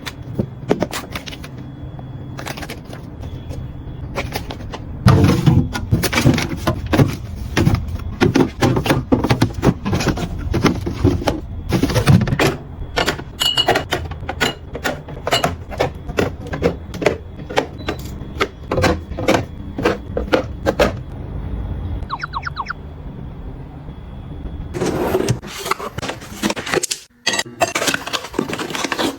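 Close-up handling sounds of items being picked up and set down: a rapid run of clicks, taps and knocks with some rustling, busiest in the middle and again near the end.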